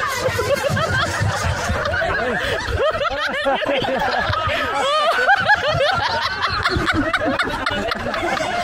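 A group of people laughing loudly, many voices overlapping.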